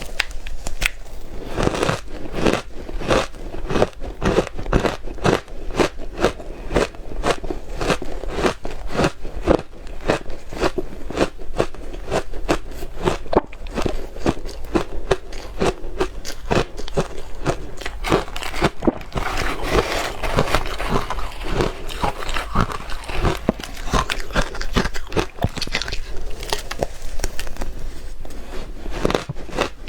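Soft ice and crushed ice being bitten and chewed close to the microphone: a dense, continuous run of crunches and crackles.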